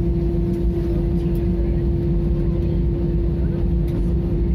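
Airbus A320 cabin while taxiing: the CFM International engines running at low taxi thrust give a steady low rumble with a constant hum.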